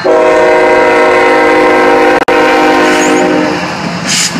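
Freight locomotive air horn sounding one long chord that cuts in sharply and fades out after about three and a half seconds, with a split-second break about two seconds in. The train's wheels rumble underneath, and a short hiss comes near the end.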